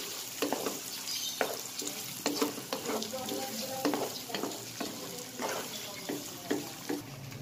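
Chopped salted eggs sizzling in melted butter and garlic in a nonstick wok, stirred with a wooden spatula that scrapes across the pan in repeated strokes, about two a second, over a steady frying hiss.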